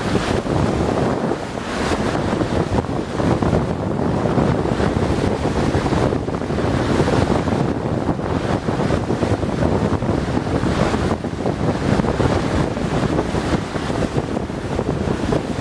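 Wind buffeting the microphone over a steady rush of sea water around a boat on open water.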